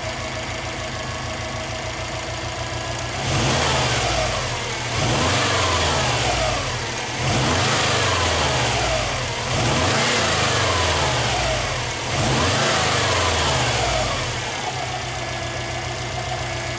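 Subaru Impreza's EJ20 flat-four engine idling, then revved five times in quick blips about every two seconds, each rising and falling in pitch, before settling back to a steady idle.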